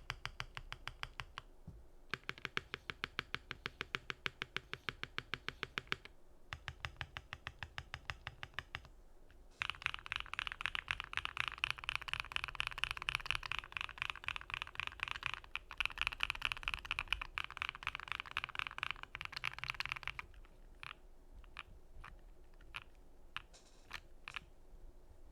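Typing on a Keychron Q1 mechanical keyboard with JWK Quartz linear switches, PE foam mod and GMK WoB keycaps. It comes in fast runs of key strikes with short pauses between them. The densest, loudest run lasts from about ten to twenty seconds in, and a few separate keystrokes follow near the end.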